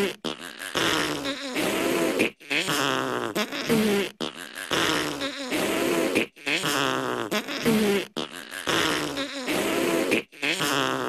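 Cartoon characters blowing raspberries, blown into cupped hands. A run of raspy, buzzing raspberries breaks off about every two seconds and repeats over and over as a loop.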